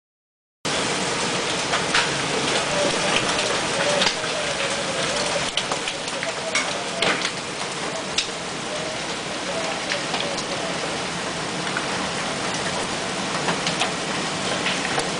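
Heavy downpour of rain and hail, a dense steady hiss with sharp cracks of hailstones striking hard surfaces scattered through it. It starts abruptly about half a second in.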